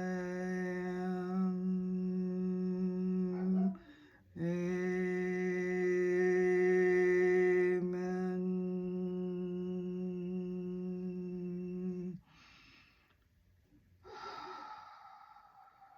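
A woman's voice humming, or toning, one long low note on a single steady pitch as a sound-healing practice. She breaks for a breath about four seconds in, then holds the same note again until about twelve seconds in. A shorter, softer voiced sound follows near the end.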